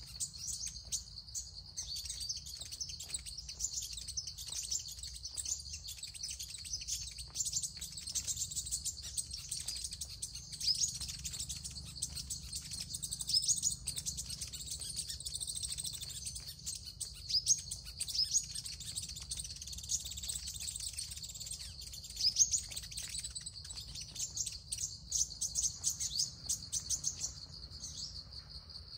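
Sunbirds chirping: a continuous stream of short, high-pitched chirps and twitters, with louder calls scattered through it.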